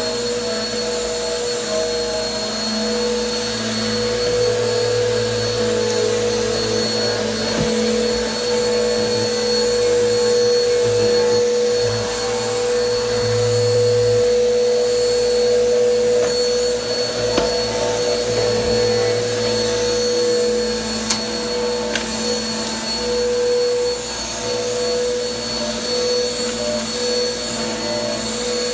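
Bissell PowerForce Helix upright vacuum cleaner running steadily as it is pushed over a carpet rug, its motor giving an even, unbroken whine.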